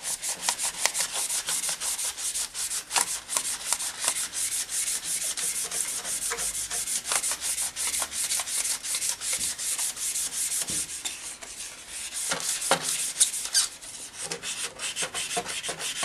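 Quick, even back-and-forth strokes of hand abrasive scrubbing on a motorcycle's metal exhaust downpipe, a few strokes a second, with a couple of brief pauses, as the grime is worked off.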